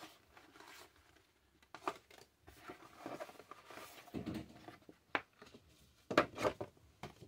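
Cardboard toy packaging being rummaged through by hand: faint rustling and scraping with a few sharp clicks and knocks, the loudest cluster about six seconds in.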